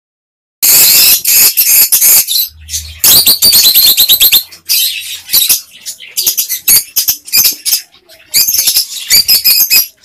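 Rosy-faced lovebirds chattering loudly in rapid runs of high-pitched chirps and squawks, with short pauses between the runs.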